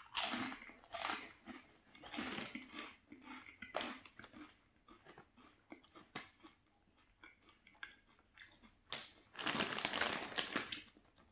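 Close-up crunching and chewing of a crisp puffed yucca-starch snack (biscoito de polvilho), in irregular bursts that thin out, then the plastic snack bag crinkling near the end.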